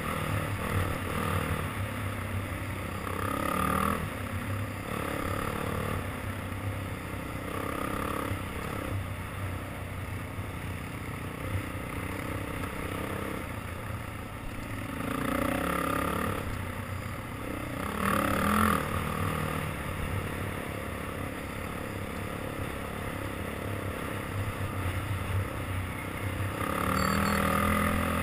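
Sport ATV engine running under load on a dirt trail, its revs surging up several times, heard through a helmet-mounted camera with some wind on the microphone.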